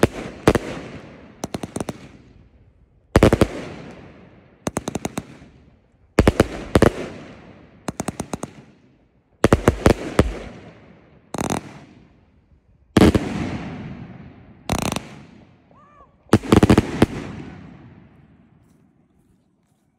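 Fireworks going off: about a dozen volleys of sharp bangs, some in quick rattling clusters, each trailing off in an echoing rumble. The last volley dies away near the end.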